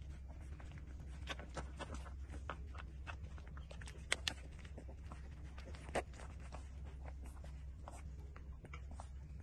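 18-day-old puppies suckling at their mother's teats: irregular small wet smacking and clicking sounds, with a few sharper clicks near the middle, over a steady low hum.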